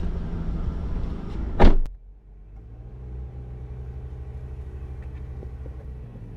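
A car door slams shut about a second and a half in. After it the car's engine hum carries on much quieter and steadier, as heard from inside the closed cabin.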